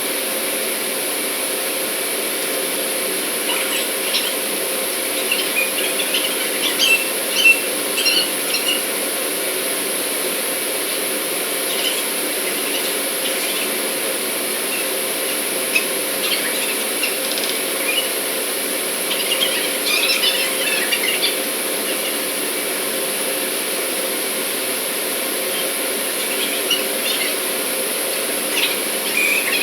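Steady drone of running machinery with clusters of short, high-pitched squeaks over it, coming in three spells of a few seconds each.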